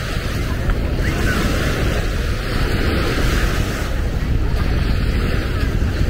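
Sea waves washing onto the beach, mixed with wind buffeting the microphone in a steady rush of noise.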